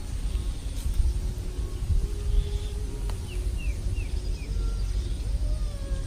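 Outdoor marsh ambience: a constant low rumble under a faint steady hum that wavers slowly in pitch. About three seconds in, a bird gives four short falling chirps.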